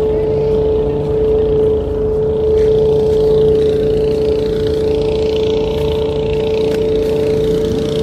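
Steady engine drone with a constant humming tone over a low rumble.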